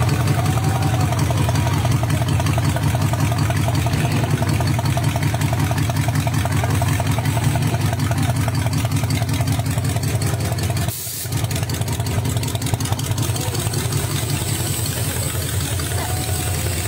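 Rat rod's open, exposed engine running close by at idle, with a steady, rapid low exhaust beat and a short dip about eleven seconds in.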